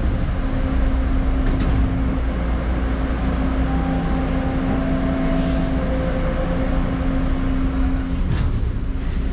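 Toronto subway train (TTC T1 car) running between stations, heard from inside the car. There is a steady rumble with an even motor hum, and a brief high squeal about five seconds in.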